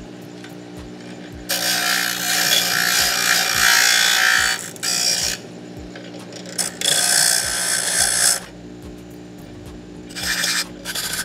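Lotus 6-inch, 1/3-horsepower bench grinder running with a steady motor hum while a small piece of steel angle bar, held in pliers, is pressed against the grinding wheel. It gives loud rasping grinding in several passes, the first starting about a second and a half in and lasting about three seconds, with shorter passes near the end.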